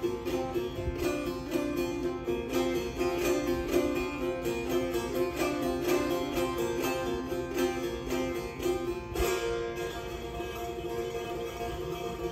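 Persian setar played solo, a quick run of plucked notes over a ringing drone of open strings. About three-quarters through comes a firmer stroke, after which the notes go sparser and a little softer, left to ring.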